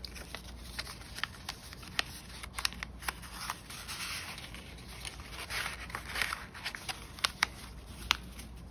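A sheet of paper being folded, tucked and pressed flat by hand: soft rustling and sliding with scattered sharp crackles as the folds are creased.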